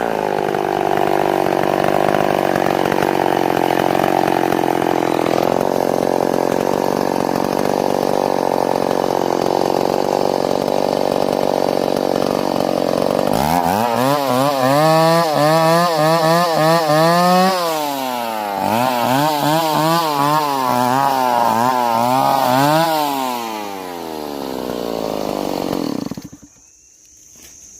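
Chainsaw running at high revs, cutting steadily for the first half. In the second half its pitch wavers rapidly up and down as the saw works in the cut, then it stops near the end.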